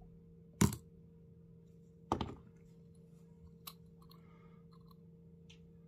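Three light knocks and clicks, about a second and a half apart, with a few fainter ticks, from a small glass jar and its copper-wire handle being handled on a rubber work mat.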